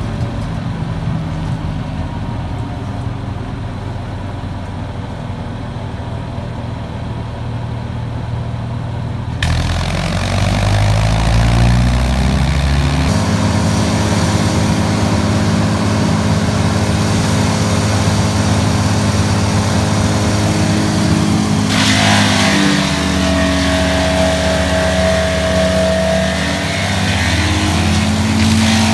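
Tow-behind wood chipper's engine running at idle, then revving up to full speed about ten seconds in and holding there. From a little past the middle, branches are fed in and chipped, adding a loud grinding hiss and a steady whine.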